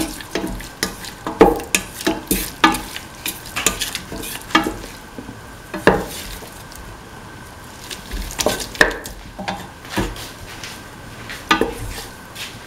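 A spatula stirs and scrapes frying onions, shallots and tomatoes against the sides of a stainless steel pot, over a steady sizzle. The strokes come irregularly, about one a second, with a pause of a couple of seconds after the middle.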